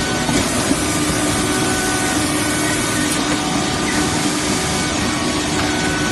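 Industrial edge sanding machine running steadily as it sands the edge of a panel: a constant grinding noise with a steady machine hum beneath it.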